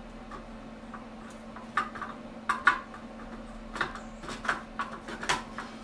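Steel bars and parts of an air-ride seat's suspension clinking and knocking against each other as they are handled and fitted: a string of sharp metallic clinks, the loudest about two and a half seconds in, over a steady low hum.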